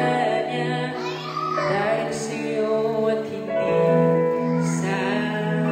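Music playing: a song with a woman's singing voice over held instrumental notes.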